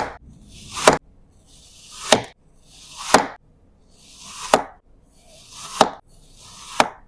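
A blade slicing through kinetic sand, repeated roughly once a second. Each cut is a gritty crunch that swells and ends in a sharp click.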